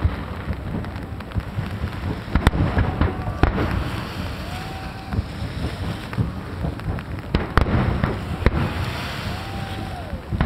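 Aerial firework shells bursting in a large display: four sharp bangs, two close together about two and a half seconds in and two more near the eight-second mark, over a continuous low rumble of further bursts.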